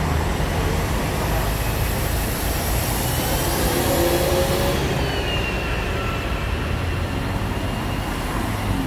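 Steady city traffic at a busy square: a dense rumble of car, bus and truck engines with tyre noise, and a couple of faint drawn-out squeals partway through.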